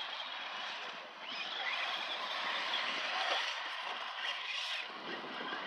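Traxxas Slash RC short-course truck running on a dirt track, its motor pitch rising briefly as it speeds up, about a second in and again near the end, over a steady hiss.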